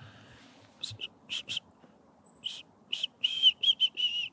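A person whistling a quick run of short, high notes to imitate goldcrest song and lure the birds in. The notes start about a second in, scattered at first, then come close together in a wavering run in the second half.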